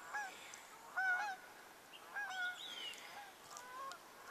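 Geese honking repeatedly, a few calls in each group, with the groups coming about a second apart.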